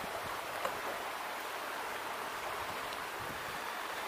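Shallow creek running steadily, an even rushing of water.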